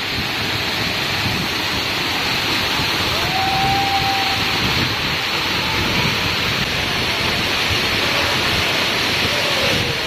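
Waterfall's curtain of water falling down a rock wall and splashing below, a steady loud rushing.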